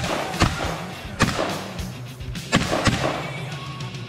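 Shotgun shots fired in quick succession, about four in under three seconds, each a sharp crack, over steady background music.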